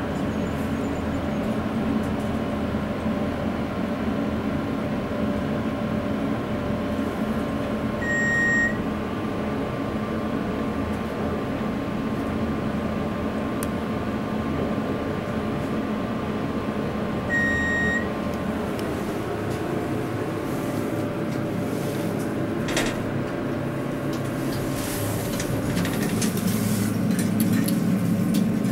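Hydraulic elevator car in motion: a steady hum of the running drive, with two short electronic beeps about nine seconds apart. The noise grows a little louder near the end.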